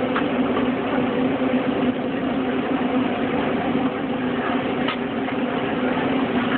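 Steady mechanical hum, like a running motor or engine, over a constant din of background noise, with a couple of faint clicks.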